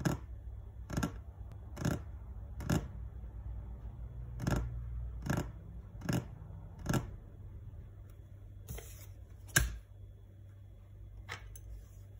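Hands tapping on a tabletop: eight sharp taps a little under a second apart, in two groups of four. A short rustle and one louder knock follow near the end.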